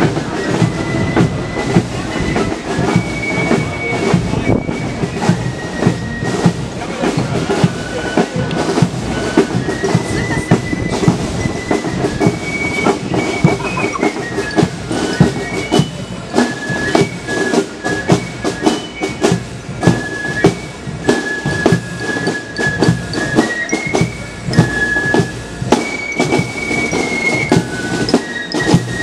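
Marching fife-and-drum band playing a march: high flutes carry the melody over a steady beat of snare drums.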